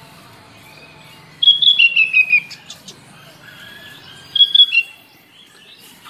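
Sooty-headed bulbul singing: a quick run of bright notes stepping down in pitch about a second and a half in, then a second, shorter phrase near the end.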